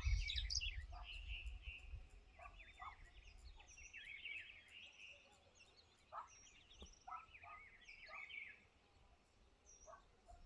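Several wild birds chirping and trilling in quick, overlapping short calls, with a faint even high ticking at about four a second. A low wind rumble on the microphone fades out after about three seconds.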